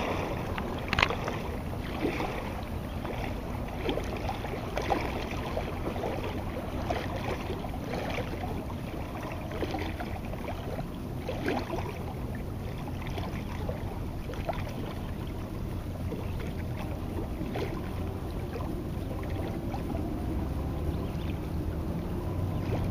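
Water lapping and splashing in short irregular bursts over a low steady boat-engine rumble, with some wind on the microphone.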